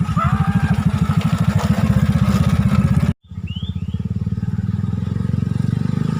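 Motorbike engine running with a steady, fast low putter. It cuts out for an instant about three seconds in and resumes. A few short high chirps sound over it.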